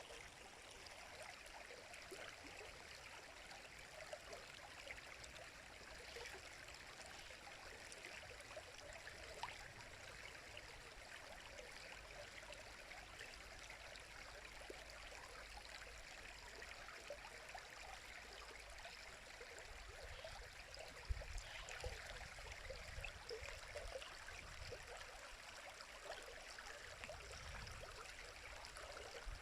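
River water running and babbling, an even rush flecked with small splashes. A brief low thump and rumble comes about two-thirds of the way through.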